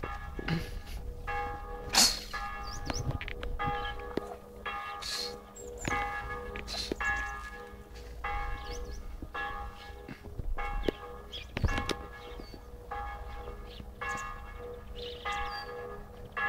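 Bells ringing, a fresh stroke about once a second, each one ringing on as the next begins.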